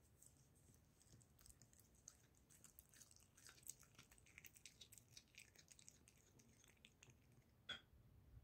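Tabby cat faintly chewing and licking liverwurst: a run of small wet clicks and smacks, with one sharper click near the end.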